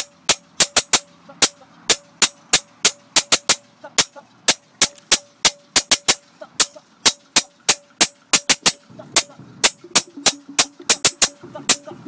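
Marching snare drum played right under the microphone: a fast, uneven run of sharp stick strokes, about three to four a second, each with a short ring from the drum. A lower sustained tone joins about nine seconds in.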